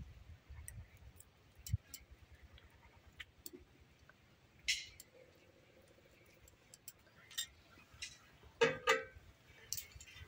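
Scattered light clicks and taps of kitchen utensils, such as a spoon against a bowl or pot, while biryani layers are being assembled, with a short louder cluster of sounds near the end.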